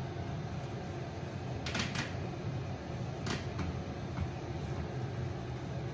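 Vevor diesel heater's fan running steadily with a low hum during its start-up cycle, before the fuel pump starts clicking. A few short clattering clicks come about two seconds in and again a little past three seconds.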